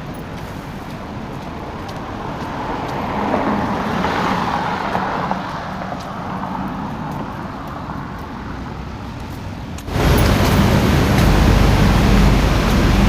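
Street traffic noise, with vehicles going by and swelling about four seconds in. About ten seconds in it cuts abruptly to a louder, rumbling noise.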